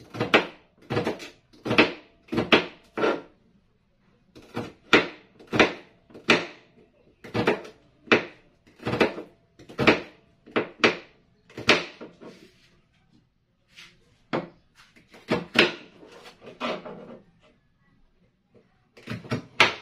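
Kitchen knife slicing bitter gourd (ampalaya), each cut ending in a sharp knock of the blade on the surface beneath, about two a second with a few short pauses.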